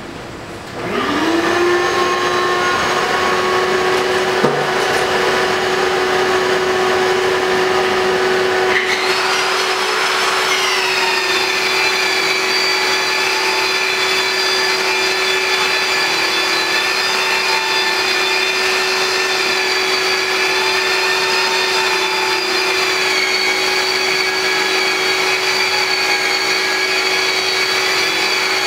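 Dust-free drywall sanding: a dust-extraction vacuum spins up about a second in and runs steadily. A long-handled ceiling drywall sander then joins with a higher whine about a third of the way through, sanding the ceiling joints.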